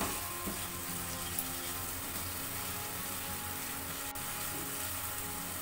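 Spice masala frying in oil in a pan with a steady sizzle, under soft background music.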